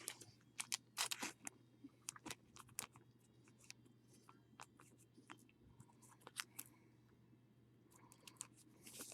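Faint, irregular clicks and rustles of trading cards and plastic card sleeves being handled, over a low steady hum.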